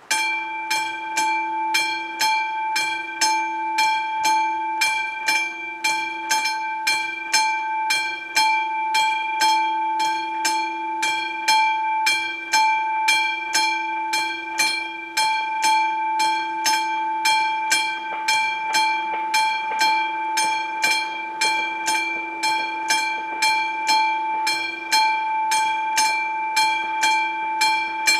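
Classic electric warning bell of an AŽD 71 level-crossing signal starting up suddenly and ringing with evenly repeated strokes, about two a second. It signals that the crossing has activated for an approaching train.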